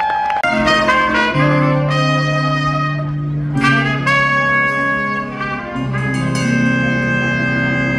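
Live blues band playing, a horn section of trumpet, saxophone and trombone holding chords over a bass line, the chords changing every second or two.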